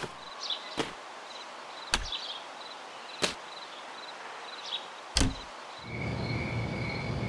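Quiet night-time kitchen sound effects: a cricket chirps in short repeated trills, and four sharp knocks are heard, spaced one to two seconds apart. About six seconds in, a low hum and a steady high tone come in.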